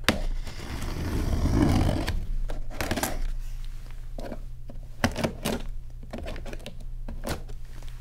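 Scissors slicing along the packing tape on a cardboard box: a continuous scratchy cut for about two seconds, then several sharp clicks and scrapes as the blades work along the tape.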